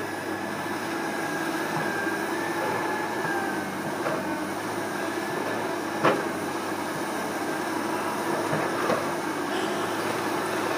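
Steady heavy mechanical rumble with a high metallic squeal held over it, broken by a few sharp clanks, the loudest about six seconds in.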